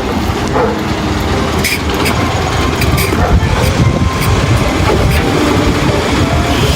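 Toy garbage truck pushed along a hard floor, its plastic wheels rumbling steadily, with a few light clicks.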